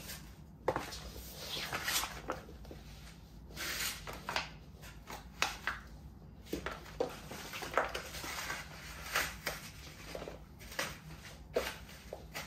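Paper and cardboard packaging being crumpled and crushed under knees and hands: irregular rustling and crackling with sharper crinkles about every second or so.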